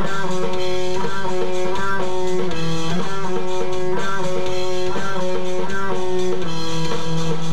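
Electric guitar played live through an amplifier, a repeating pattern of held chords that change about every half second, without singing.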